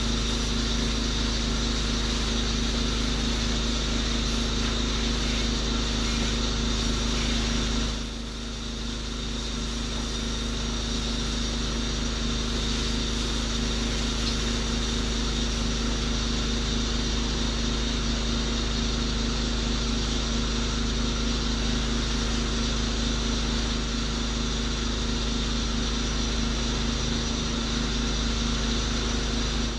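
Pressure washer rig's engine and pump running steadily while a wand sprays soap solution through a V-Jet soap tip, with a brief dip in level about eight seconds in.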